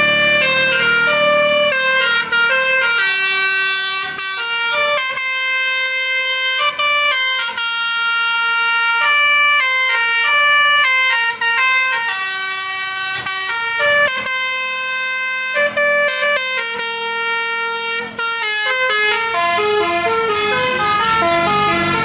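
Basuri telolet multi-tone bus horn playing a long melody: a quick run of stepped notes, some held for about a second, with only brief breaks between phrases.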